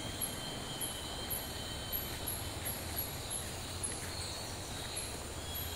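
Rainforest insects calling: steady high buzzing tones with a faint high chirp pulsing about twice a second, over a low steady rumble.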